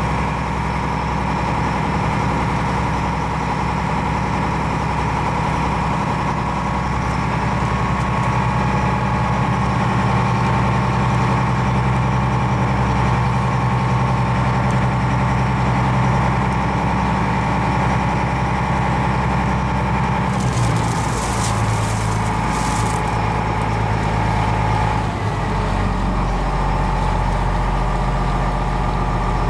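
Small car ferry's diesel engine running steadily while underway, heard from the open deck. About two-thirds of the way through the engine note changes, and it drops lower near the end, with a brief hissing in between.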